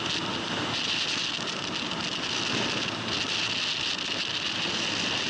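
Steady rush of wind and road noise on a helmet-mounted camera while a motorcycle rides at speed.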